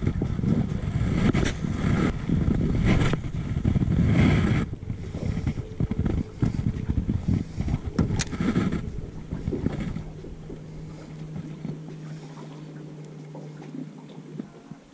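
Gusts of wind rumbling on the microphone, with a sharp click about eight seconds in. After about ten seconds the wind eases and a steady low boat-motor hum is left.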